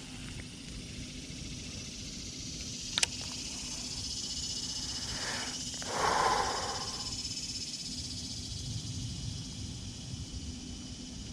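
Outdoor ambience: a steady high-pitched insect drone, with one sharp click about three seconds in and a short burst of rushing noise around six seconds in.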